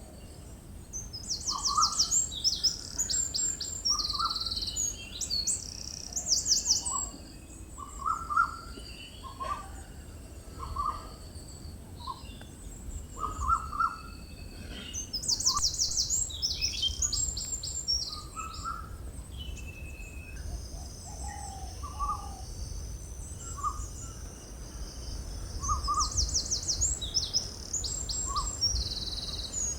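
Birds singing: a high, fast trilled phrase recurs three times, about every eleven seconds, over many short, lower call notes repeated throughout. Under them runs a steady low rumble.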